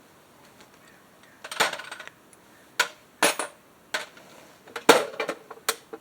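Hand tools and small metal parts clinking and knocking: a series of sharp, separate metallic clicks at uneven intervals.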